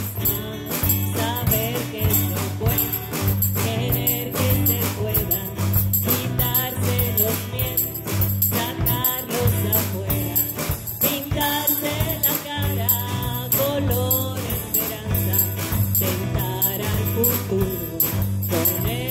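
A small band playing a song live: drum kit, guitar and keyboard, with a tambourine jingling in steady rhythm and a woman singing a melody over them.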